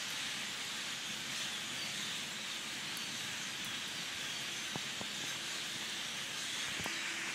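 Steady outdoor background hiss, with a few faint ticks in the second half.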